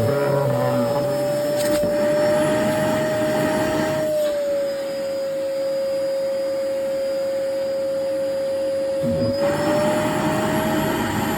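Vacuum cleaner running with its floor nozzle removed, a steady motor whine over rushing air at the open wand end. About four seconds in the pitch dips slightly and the air rush quiets, then both come back up near the end.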